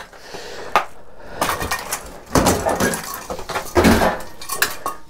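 Metal clanks and knocks from an old General Automatic gas boiler and its pipe fittings being shifted and handled, with two heavier thumps, about two and a half and four seconds in.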